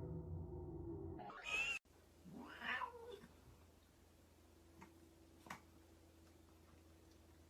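A cat meowing twice in quick succession, two short calls a little over a second apart, followed by a few faint clicks.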